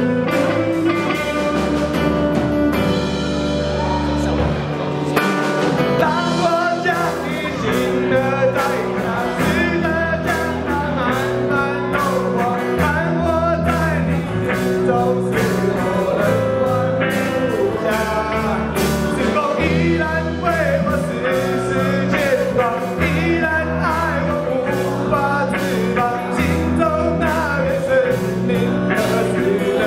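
A live rock band playing an instrumental passage: a lead guitar line with bending notes over bass and a steady drum beat.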